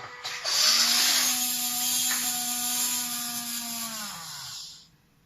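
A whirring, machine-like hum over a loud hiss. It starts about half a second in, holds steady for about four seconds, then slides down in pitch and dies away as it stops.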